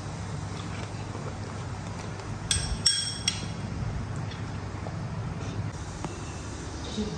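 A metal spoon clinking against a small feeding bowl: a quick run of three or four bright, ringing clinks about two and a half seconds in, over a steady low hum.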